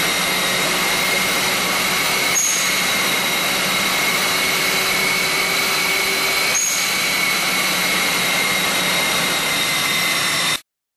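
Steady machine noise in a dyno cell: an even rushing with a high steady whine, unchanging in pitch, and two faint clicks. It cuts off suddenly near the end.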